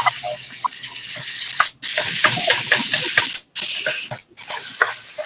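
Prawns, garlic and chopped firm tofu stir-frying in oil in a wok: a steady sizzle, with light knocks and scrapes of a ladle stirring. The sizzle drops out briefly a few times.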